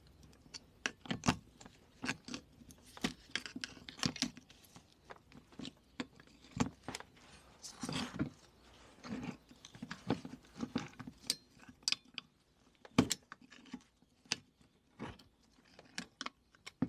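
Irregular metallic clicks, clinks and light scrapes as a moped's front drum-brake backplate is worked by hand, its brake shoes and return springs being prised out. One sharper knock about thirteen seconds in is the loudest.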